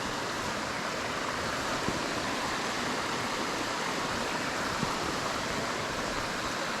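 A small creek's water running steadily, an even rushing hiss.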